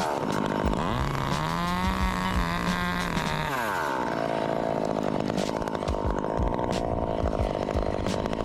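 Chainsaw engine revving up and down, then held at a steady high speed from about four seconds in.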